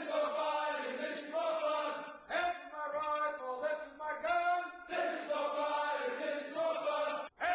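A group of male recruits shouting a marching chant in unison, in rhythmic phrases. The chanting cuts out for an instant near the end.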